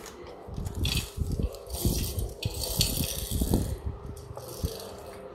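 Small die-cast Tomica toy vehicle rolled back and forth on a tiled floor, its little metal-and-plastic wheels rumbling and rattling against the tiles for about three seconds, then stopping.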